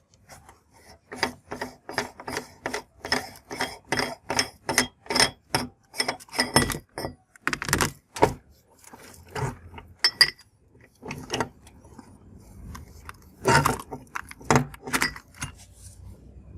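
Candy being crushed in a meat grinder: a quick run of sharp crunching clicks, about three a second, for the first several seconds, then scattered louder cracks with a cluster near the end.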